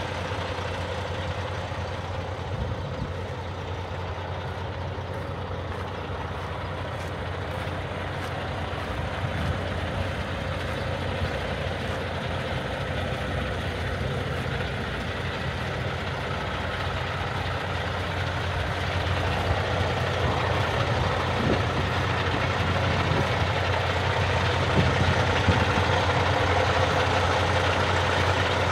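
Cummins ISX15 diesel of a 2018 International LT625 day cab idling steadily, a low even hum that grows somewhat louder about two-thirds of the way through.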